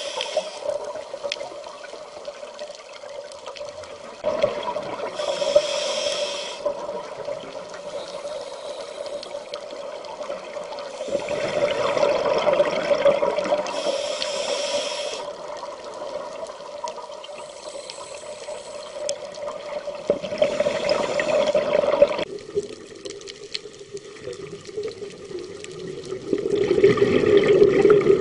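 Scuba diver breathing through a regulator underwater: a surge of bubbling and hissing roughly every seven to eight seconds, four times, over a steady hum.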